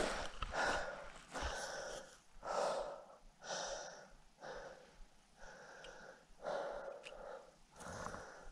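A hiker breathing hard, with a breath of air about once a second.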